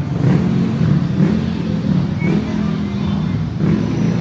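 Motor vehicle engines running close by in street traffic, a steady low hum.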